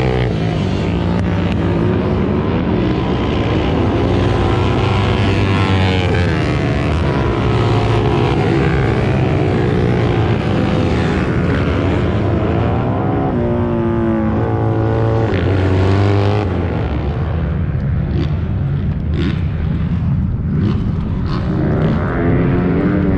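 Racing motorcycles on a dirt TT track, several engines revving up and down together, their pitch rising and falling as they go through the corners and past.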